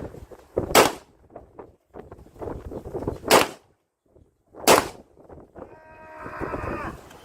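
Three single shots from an AK-47 rifle, firing 7.62×39 mm rounds, about 0.8 s, 3.4 s and 4.7 s in, with wind buffeting the microphone between them.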